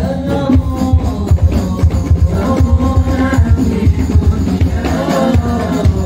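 Sholawat, Islamic devotional song, sung by a man's voice through a PA loudspeaker over a fast, steady beat of frame drums.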